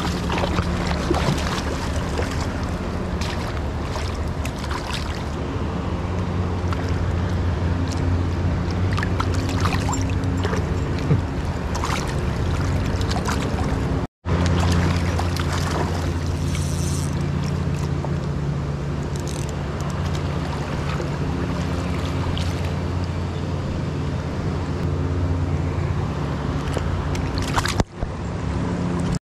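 Water splashing and sloshing from a hooked rainbow trout thrashing at the surface, with scattered short clicks, over a steady low hum.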